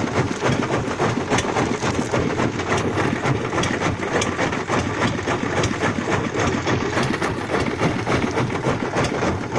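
Boat under way at sea: its engine running steadily beneath a loud, crackling rush of wind and water.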